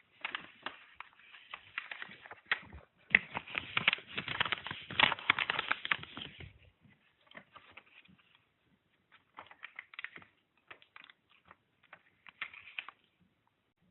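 A sheet of white paper with Scotch tape on it being handled and folded in half: crinkling and crackling paper, heaviest and densest from about three to six and a half seconds in, then scattered clicks and rustles as the fold is pressed down.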